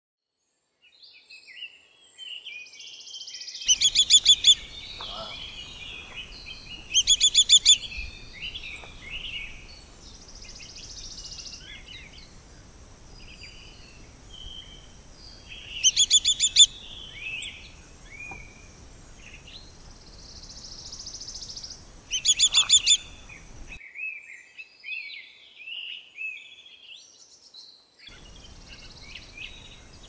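Birds calling: four times, a loud, fast series of high notes lasting about a second, over scattered softer chirps of other birds.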